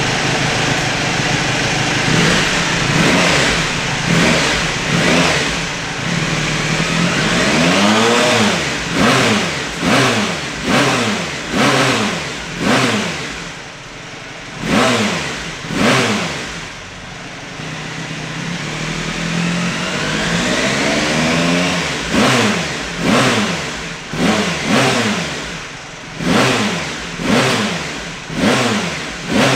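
Honda RC213V-S's 999 cc V4 engine at idle, then revved with short, sharp throttle blips about once a second, with one slower, longer climb in revs midway. It is running on the stock ECU, with revs locked at about 8,000 rpm.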